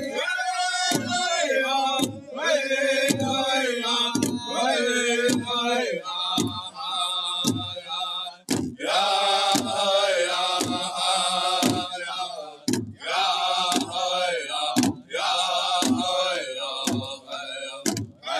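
A group of men sing a Lakota/Dakota Sun Dance ceremony song in the northern style, striking one large powwow drum together with beaters. The drum beats steadily about once a second under the chanted voices.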